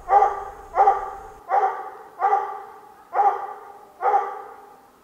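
Bluetick coonhound barking steadily at a treed squirrel: six evenly spaced barks, about one every three-quarters of a second.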